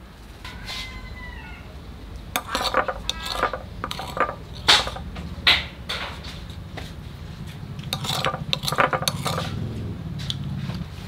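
Metal spoons clinking and tapping against a stainless steel bowl and small bowls as coloured agar jelly is spooned over the setting white layer, in a run of sharp clinks. A short meow about a second in.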